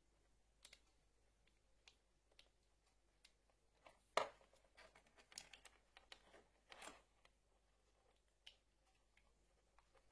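Faint, scattered clicks and knocks of small electrical parts and tools being handled while wiring a socket, with one louder knock about four seconds in followed by a short run of clicks.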